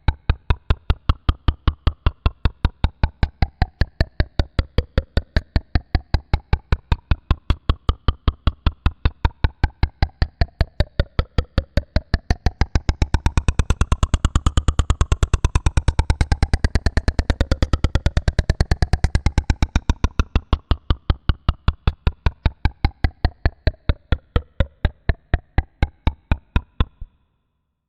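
Synthesized electronic sound effect: a fast, steady ticking pulse under tones that sweep up and down, growing fuller in the middle, then cutting off suddenly near the end.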